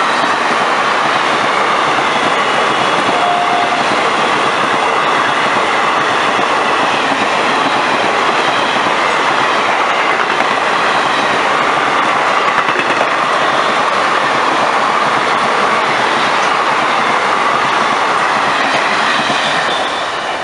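Express passenger train hauled by a WAP-4 electric locomotive passing at speed: loud, steady rushing and clattering of the coaches' wheels over the rails, dropping off near the end as the last coaches go by.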